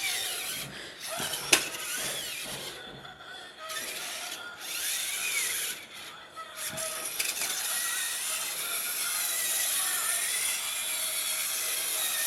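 Toy remote-control monster truck's electric motor and gearbox whirring, the pitch rising and falling as it speeds up and slows, with a sharp click about a second and a half in.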